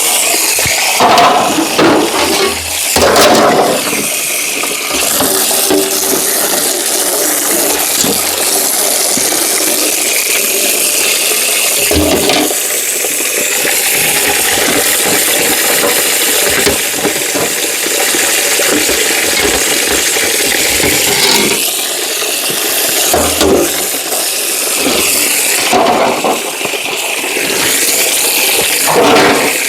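Running water splashing steadily as refrigerator parts are rinsed, with occasional knocks and clatter as the parts are handled.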